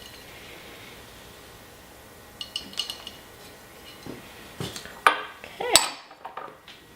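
Dishes and utensils clinking and knocking on a kitchen counter. A few light ringing clinks come about two and a half seconds in, then sharper knocks near the end.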